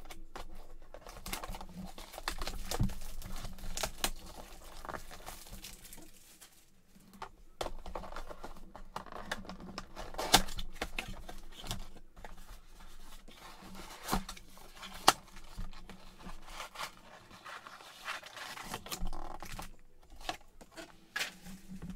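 Plastic wrap being torn and crinkled off a cardboard box of trading cards, and the box pulled open, with irregular rustling and a couple of sharp snaps about ten and fifteen seconds in.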